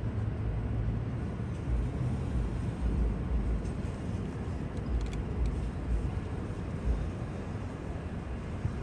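San Diego MTS light-rail trolley rolling past through a road crossing: a low rumble with uneven thumps and a few sharp clicks about five seconds in.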